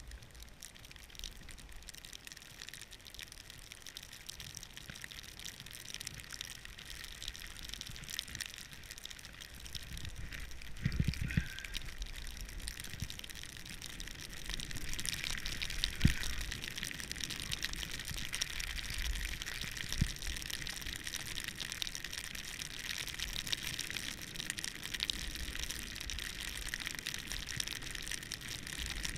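Snowboard riding through deep fresh powder: a steady rushing hiss of snow under the board that grows louder about halfway through, with a few dull thumps.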